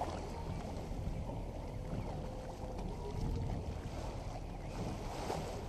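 Fishing boat trolling: a steady low rumble of its motor mixed with water washing along the hull.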